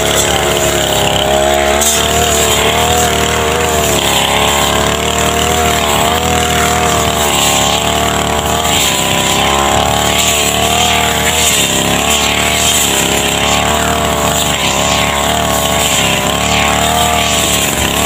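Backpack brush cutter's small petrol engine running at high speed while cutting long grass, its pitch wavering up and down as the load changes.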